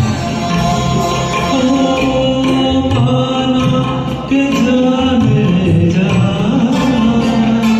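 Karaoke backing track of a Hindi film song playing an instrumental interlude: a gliding melody line over a full orchestral accompaniment.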